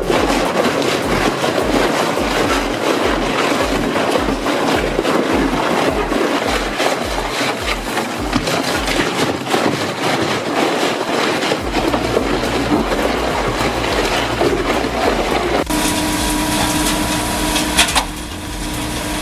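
Large wood chipper chewing through wood: a dense grinding noise over a low throb that pulses a little over twice a second for the first twelve seconds or so. Near the end the sound changes to a steadier drone with a held tone.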